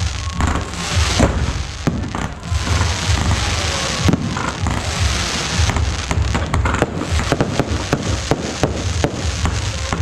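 Fireworks show: a dense crackle of aerial fireworks, giving way about six seconds in to a rapid string of sharp bangs, over a steady low rumble.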